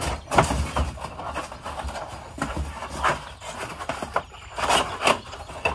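Cardboard box and packing being handled, with irregular scraping, rustling and light knocks as a plastic roof-vent fan shroud is lifted out of its box.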